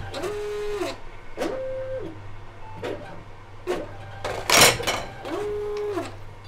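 Reverse vending machine's bottle-handling mechanism at work: three short electric-motor whines, each rising, holding briefly and winding down, over a steady low machine hum. Scattered clicks and one loud clatter about two-thirds of the way in come as a bottle is moved through to the conveyor.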